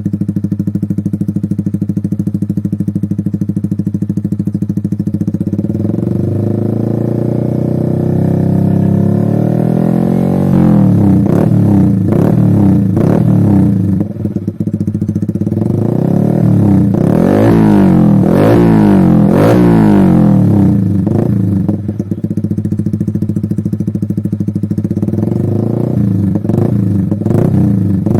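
Yamaha XSR 155's single-cylinder engine running through a Salvator aftermarket exhaust with an Arrow-style silencer. It idles, rises in revs after about six seconds, then is blipped hard several times in quick succession through the middle, drops back to idle, and is blipped a few more times near the end.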